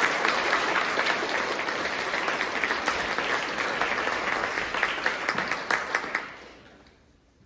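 Audience applauding, many hands clapping at once; the applause dies away about six seconds in.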